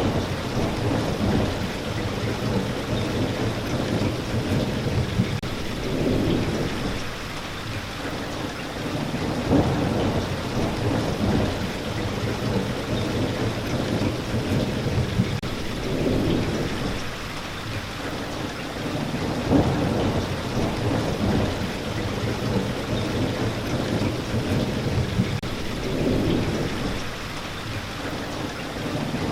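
Steady rain of a thunderstorm, with low rumbles of thunder that swell and fade every few seconds.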